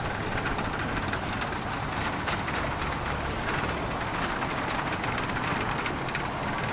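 Steady road-traffic noise from cars on the bridge roadway, an even rumble and hiss with faint irregular ticks.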